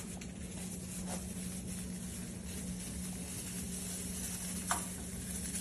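Quiet kitchen room tone: a steady low hum under a soft hiss, with one faint click about three-quarters of the way through.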